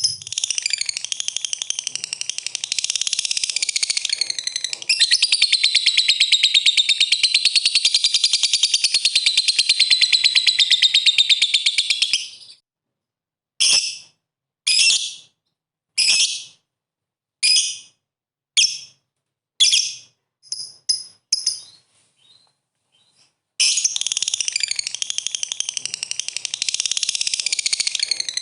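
Lovebird's ngekek song: a long, fast chattering trill held for about twelve seconds, then a run of short separate chirps about a second apart, a brief pause, and the long trill starting again near the end.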